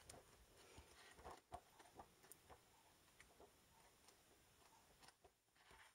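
Near silence: room tone with a few faint short taps and clicks in the first couple of seconds, as of small handling movements.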